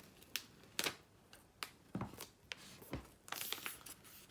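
A shrink-wrapped phone box being handled: scattered light taps and clicks, and a brief rustle of the plastic wrap a little over three seconds in.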